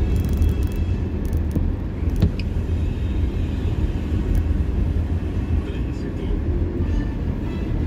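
Low, steady rumble of a car's engine and tyres on a wet street heard from inside the cabin, with a few light knocks about one to two seconds in.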